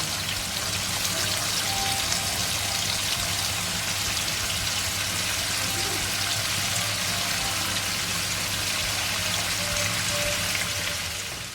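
Chicken pieces deep-frying in hot oil: a steady, dense sizzle that fades out near the end. Faint background music runs underneath.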